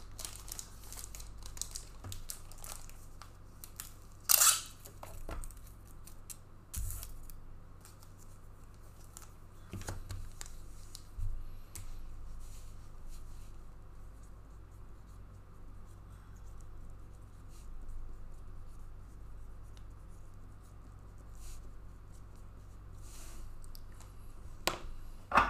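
Trading card packaging and cards being handled: soft rustling and small clicks, with a few short sharp tearing noises, the loudest about four seconds in and another near the end. A low steady hum runs underneath.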